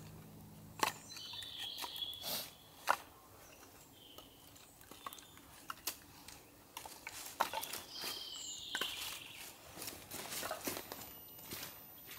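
Split kindling sticks clacking and knocking together as they are gathered up by hand, then footsteps through wet leaf litter. A bird chirps briefly about two seconds in and again about eight seconds in.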